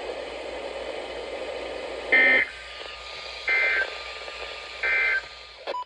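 NOAA Weather Radio receiver hissing, then three short digital SAME data bursts of the Emergency Alert System end-of-message code, evenly spaced about 1.4 seconds apart, signalling the end of the required weekly test.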